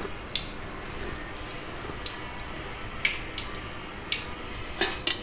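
Hot oil crackling in a kadai as a papad fries and is lifted out on a steel slotted spoon: scattered pops and clicks, with two sharper ones near the end.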